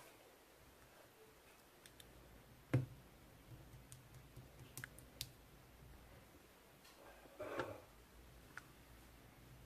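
Faint scattered clicks and taps, with one louder knock about three seconds in and a brief soft noise near the end.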